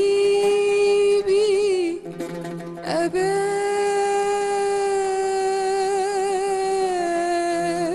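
A woman singing an Arabic song, drawing out long vowel notes without words: one held for about two seconds, then, after a short break, one held for about five seconds with slight vibrato that dips a little near the end.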